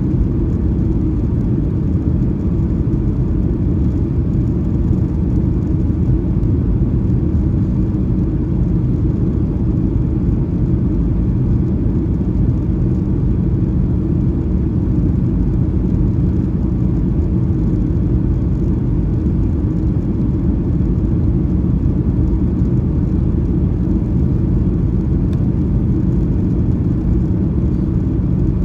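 Steady cabin noise inside a Boeing 737-800 in flight with flaps extended for approach: a constant low rumble from its CFM56-7B turbofan engines and the airflow, with a faint hiss above it.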